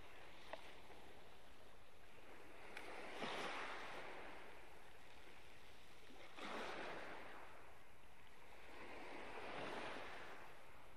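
Small waves washing in over a pebble beach, three gentle surges about three seconds apart.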